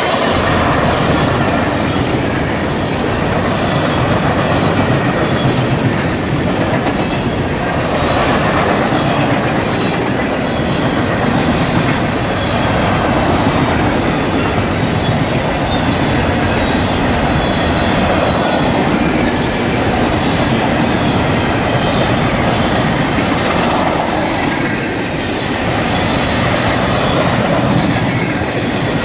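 A freight train's covered hopper cars rolling past close by: a loud, steady rumble and clatter of steel wheels on the rails, swelling and easing every few seconds as the cars go by.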